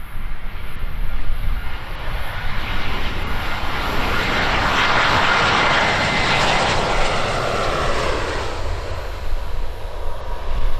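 Airbus A320's turbofan engines as the jet comes in to land and passes by: jet noise swells, peaks about halfway through and fades away, over a low rumble.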